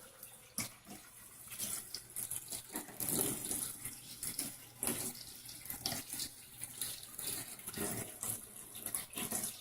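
Water pouring into the wash tub of a Giantex portable twin-tub washing machine as it is filled for the rinse, an uneven splashing and running.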